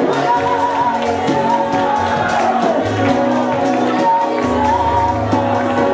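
Live amplified song: a man sings lead into a microphone over band accompaniment with a steady beat and sustained bass notes.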